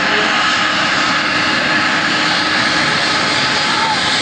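Airbus A320's twin turbofan jet engines running at low taxi power as the airliner rolls past close by: a loud, steady jet rush with a faint whine.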